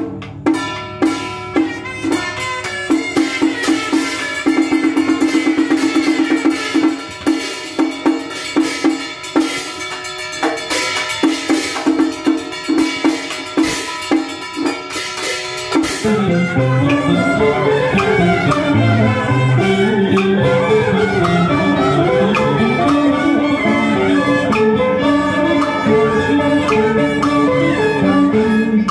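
Southern Vietnamese ritual-music (nhạc lễ) ensemble playing: drum and percussion strokes over string instruments, with a fast roll of strokes a few seconds in. A little past halfway the percussion stops abruptly and the strings carry the melody on alone with sliding notes.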